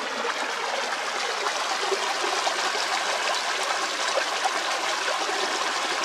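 A small woodland stream flowing and babbling over rocks, a steady rush of water.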